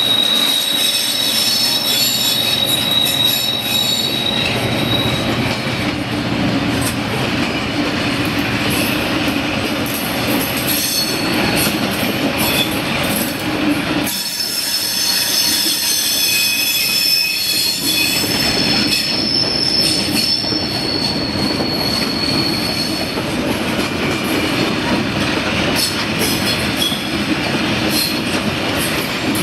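A long freight train of high-sided box wagons rolls steadily past behind a Class 66 diesel locomotive, its wheels rumbling on the rails. High-pitched wheel squeal comes and goes, strongest over the first few seconds and again in the middle stretch.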